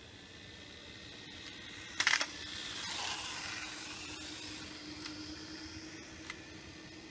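A WLtoys K989 mini RC car's electric motor whine and tyre hiss on asphalt as it runs past close by, swelling to its loudest about three seconds in and sliding down in pitch as it pulls away and fades. A brief loud scraping noise comes about two seconds in.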